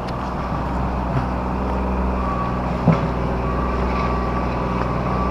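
Tractor engine running steadily as it works the gravel road, a constant low hum with one short knock about three seconds in.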